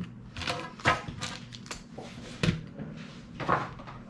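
Handling noises: a few sharp knocks and clatters with rustling, as a keyboard is fetched and set down.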